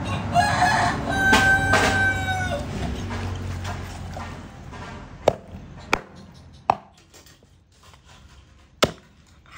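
A rooster crows loudly in the first couple of seconds. Then a cleaver chops into a raw pork leg on a wooden board: four separate sharp strikes in the second half.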